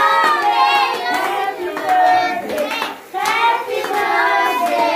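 A group of children and adults singing a birthday song together while clapping their hands along, with a brief break in the singing about three seconds in.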